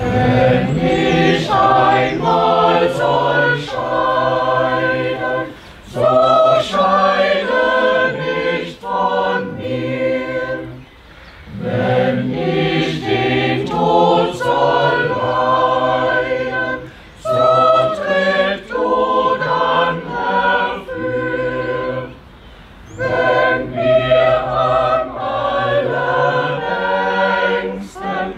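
Choir singing a cappella: sustained chords sung in phrases, with brief pauses for breath between them.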